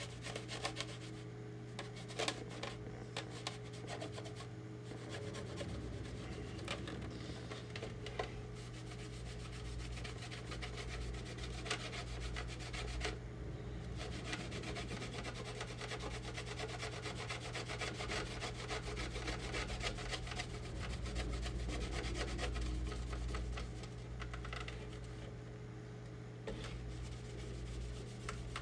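A cloth rag rubbing and wiping paint over a plastic armor piece, a continuous scuffing friction sound, with a steady low hum underneath.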